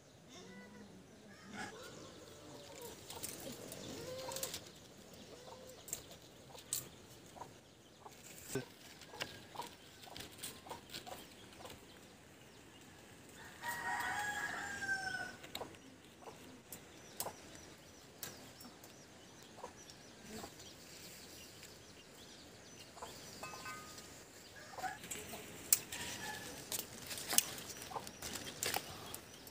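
A rooster crows once, about midway, over scattered sharp clicks and knocks, with fainter clucking near the start.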